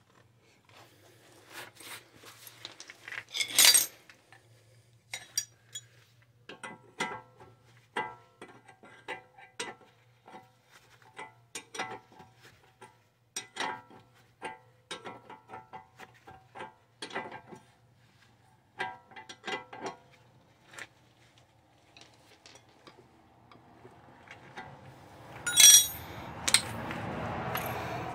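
Irregular metallic clinks and taps of hand tools being handled, each with a brief ring. Near the end come a louder clatter and a rising rush of noise.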